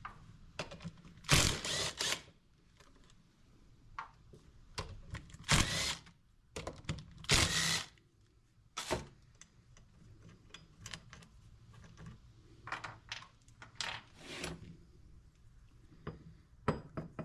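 Hand tools working on a seized power steering pump being taken apart: irregular metal clicks, rattles and knocks, with a handful of louder clanks spread through.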